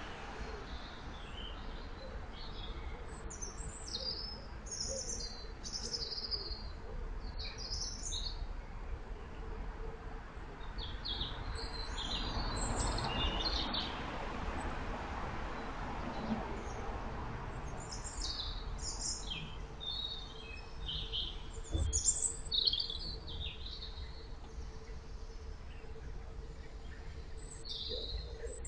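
Woodland songbirds chirping and singing in many short phrases, over the low steady wash of water stirred by an electric narrowboat's propeller, with a faint steady hum. A single dull knock about three quarters of the way through.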